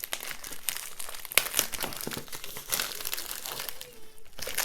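Postal package being opened by hand, its wrapping crinkling and crackling in a dense run of rustles and sharp crackles, with a brief lull near the end.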